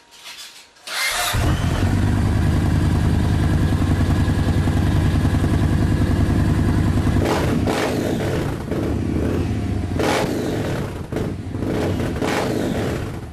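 Yamaha MT-01's 1670 cc V-twin starting about a second in, then running at a loud, steady idle through DAM aftermarket mufflers with the dB killers removed. Three short, sharper bursts stand out in the second half.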